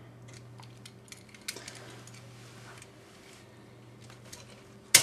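Plastic parts of a Transformers Power Core Combiners figure being handled and clicked together: scattered faint clicks and rattles, with one sharp loud click near the end.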